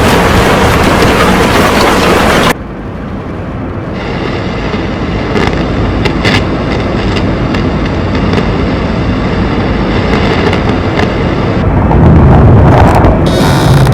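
Tornado roar: a loud rushing noise that cuts off suddenly about two and a half seconds in, then a lower rumble with scattered crackles that builds back up and is loudest near the end.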